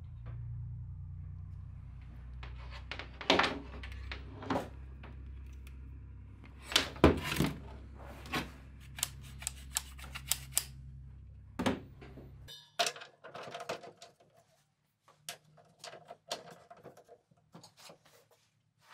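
Handling noise: a string of clicks, knocks and taps as a digital clamp meter and mains cables are picked up and set down on a workbench, the loudest knocks about three and seven seconds in. Under them is a low steady rumble that cuts off abruptly about two-thirds of the way through.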